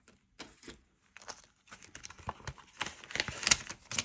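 Paper banknotes rustling and a clear plastic binder pocket crinkling as bills are handled and pulled out: a run of quick crackles, sparse at first and denser and louder from about a second in.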